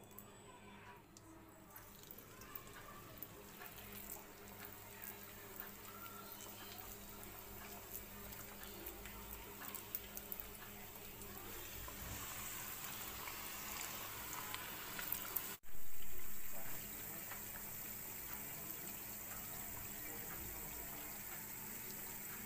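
Onion fritter (peyaji) batter deep-frying in hot oil: a steady sizzle with fine crackles that grows louder as portions are dropped into the pan. It cuts out for an instant about 15 seconds in, comes back louder for about a second, then settles into an even sizzle.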